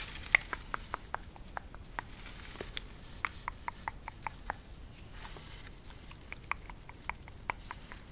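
Close-miked ASMR mouth sounds: a long, irregular run of small wet lip and tongue clicks, about three to five a second.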